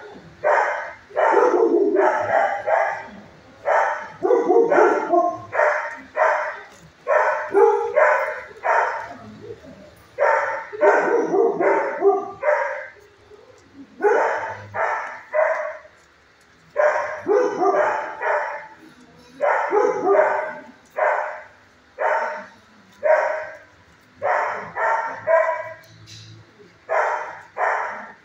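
Dogs barking in shelter kennels: sharp barks in quick runs of two to five with brief gaps, kept up over and over.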